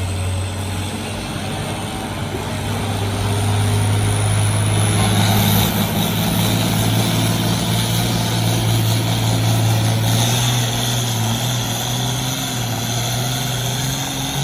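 Farm tractor engine running steadily under heavy load while it pulls a weight-transfer sled down a pulling track. It grows louder about four seconds in and holds there.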